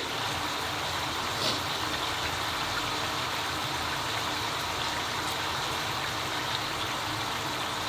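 Shower water running steadily, with one brief faint sound about one and a half seconds in.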